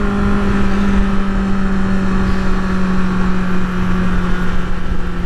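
2024 Kawasaki ZX-6R's inline-four engine running at steady revs while the bike cruises, with wind rushing over the helmet microphone.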